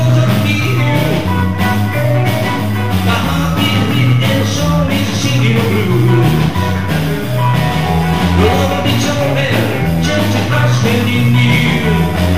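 Live rock and roll band playing: electric bass line, hollow-body electric guitar and drums, with a man singing.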